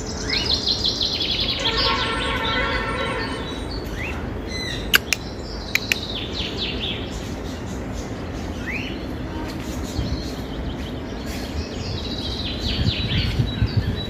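Many birds calling together: quick high chirps and short rising whistles, over a steady low background rumble, with two sharp clicks about five seconds in.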